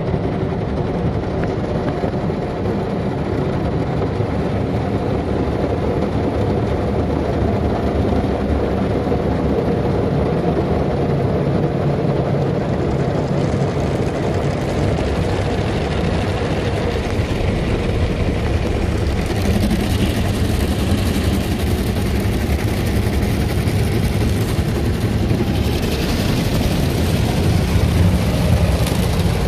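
Automatic car wash heard from inside the car's cabin: water jets spraying against the rear window and body over a steady machinery rumble. The hiss of the spray grows stronger about two-thirds of the way in.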